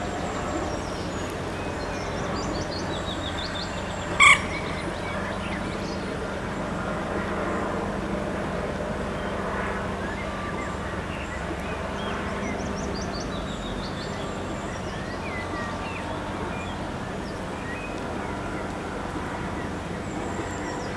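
Outdoor ambience: small birds chirping over a steady low background rumble with a faint hum. One brief, loud, high-pitched call or squeak cuts in about four seconds in.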